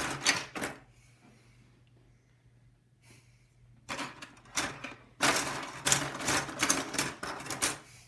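Loose desktop RAM modules clicking and clattering against each other as a hand rummages through a pile of them. A short burst comes at the start, then, after a pause of about three seconds, a denser run of clatter through the second half.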